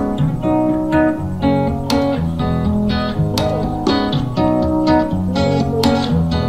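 Background music played on acoustic guitar, a steady run of plucked notes.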